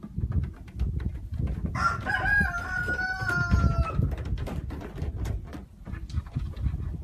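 A rooster crows once, a long call of about two seconds starting about two seconds in, over a run of low thumps and knocks.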